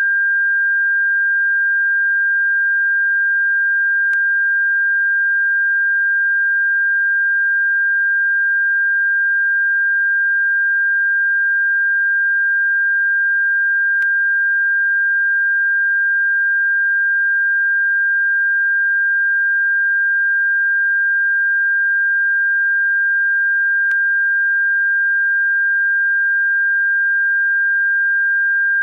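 Electronically generated bird-repellent tone: one steady, high-pitched pure tone held without a break at constant loudness. A faint click sounds about every ten seconds.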